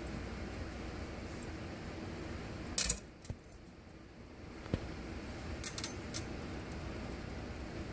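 Short, bright splashes of water as a Bengal cat paws at it, loudest about three seconds in and again twice around six seconds, over a steady low hiss.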